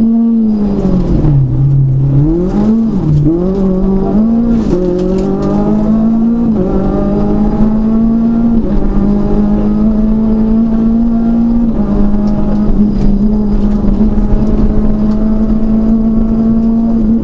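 Renault Clio RS rally car's four-cylinder engine heard from inside the cabin, driven hard on a stage. About a second in the revs drop sharply for a corner, then pick up again through a few quick rises and falls. After that the engine holds at high revs under full throttle, with brief steps at the upshifts.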